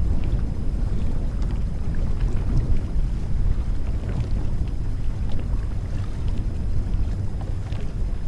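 Wind buffeting the microphone on open water: a steady low rumble, with faint light clicks now and then.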